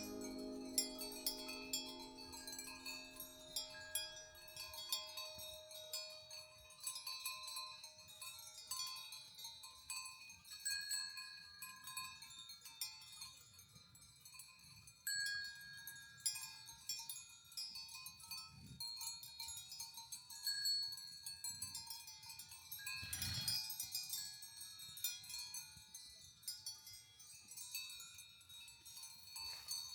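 Livestock bells on grazing animals, tinkling irregularly at several different pitches. There is a soft thump about three quarters of the way through.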